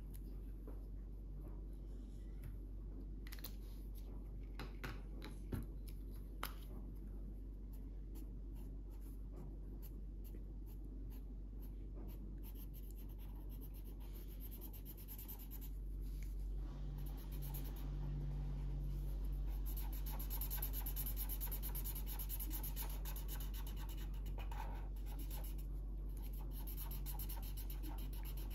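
Drawing on paper. Scattered light strokes of a marker come first. About halfway through, a louder, rapid back-and-forth scratching starts as an orange coloured pencil shades in.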